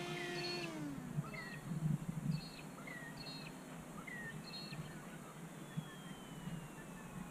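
An RC plane's electric motor whine falls in pitch and fades in the first second as the throttle comes back. Small birds then chirp in short repeated calls, with a few low thumps about one to two seconds in.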